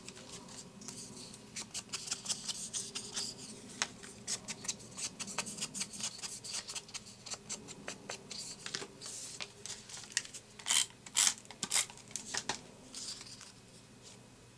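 Foam ink blending tool dabbed and rubbed along the edges of paper strips: a dense, irregular run of quick scuffing taps and papery rustles, with a few louder strokes about eleven seconds in.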